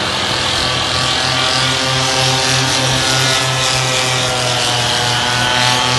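Paramotor engine and propeller droning steadily as a powered paraglider flies past, a buzzing note that pulses slightly about three times a second.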